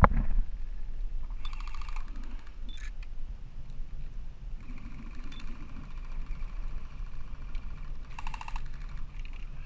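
Airsoft electric rifle firing on full auto: two short bursts of rapid clicking shots, the first about a second and a half in and the second near the end, with a faint steady tone between them.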